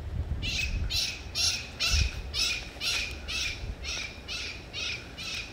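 A bird calling over and over in short harsh squawks, about two a second, starting about half a second in, over a low rumble of wind on the microphone.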